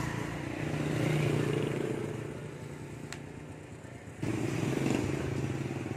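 A motorcycle engine running close by at a steady pitch, swelling slightly about a second in and jumping suddenly louder about four seconds in. One sharp click about three seconds in.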